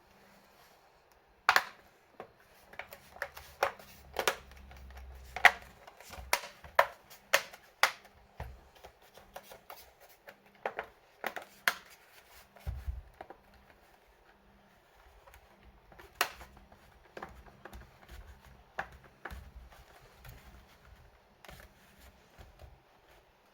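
Irregular sharp clicks and taps of hard plastic and metal laptop parts being handled, in two clusters, with a low thud about thirteen seconds in.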